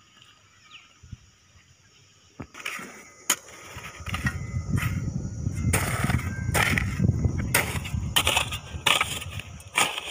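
Hand hoe with a wooden handle chopping and scraping into dry red gravelly soil, pulling earth in around a newly planted coconut sapling. The repeated strokes begin about two and a half seconds in, and a low rumble runs under them from about four seconds in.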